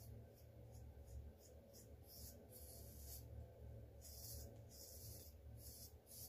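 Faint scratchy strokes of a wooden comb drawn through a thick beard and moustache: quick short strokes at first, then longer, slower ones, over a low hum.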